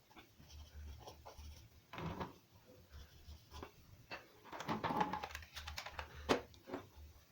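Hands handling a plastic microwave control panel and glued membrane: scattered light clicks and taps, busiest a little past the middle, with one sharp tick near the end over a low hum.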